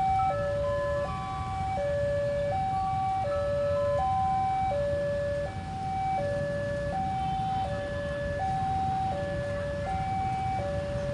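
Railway level-crossing warning alarm sounding: an electronic two-tone signal alternating evenly between a higher and a lower note, each held about three-quarters of a second, over a low steady rumble.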